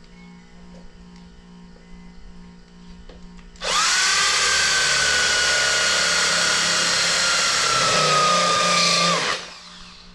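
Power drill boring into a lawn mower's metal transaxle pulley, starting suddenly nearly four seconds in and running about five and a half seconds. A steady high whine sags slightly under load, then it stops. Before it there is only a faint steady hum.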